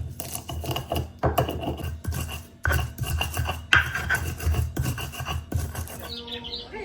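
Background music with a low thumping beat, mixed with rasping, scraping sounds.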